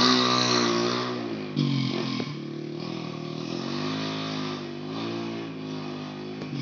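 Motorcycle engine carrying a load of timber, its pitch rising and falling several times with the throttle. It grows steadily fainter as the bike moves away.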